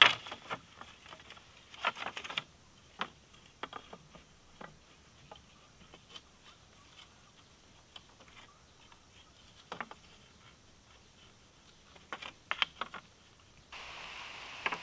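Split bamboo pieces clacking and knocking against each other and the pole frame as they are laid side by side, in scattered clusters of sharp clicks. A steady hiss of outdoor background comes in near the end.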